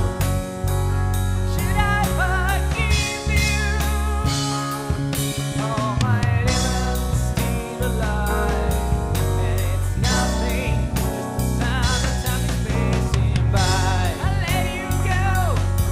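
Rock band playing an instrumental passage: drum kit and bass under a lead melody line with bends and vibrato.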